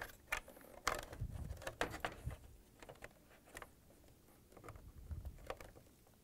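Scattered light plastic clicks and handling noise as wire-harness connectors are fitted onto a washing machine's electronic control board.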